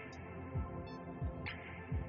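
Background electronic music with a steady beat: a low kick drum about every 0.6 seconds under a sustained synth pad, with light percussive clicks on top.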